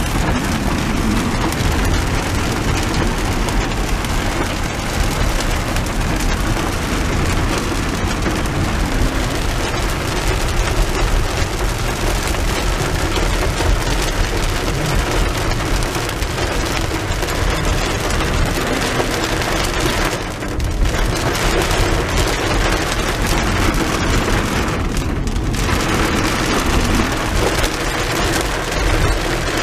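Heavy rain pelting the roof and windshield of a moving car, heard inside the cabin, mixed with the hiss of tyres on the wet road. The noise drops away briefly twice in the last third.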